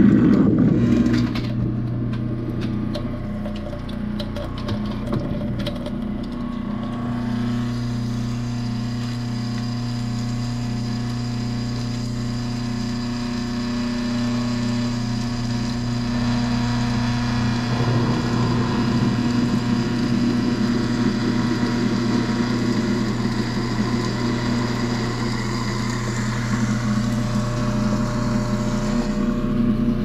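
Kitchen garbage disposal motor running with a steady hum while it churns a foaming cleaner packet and a trickle of hot water. Clicks and rattles sound over the first several seconds.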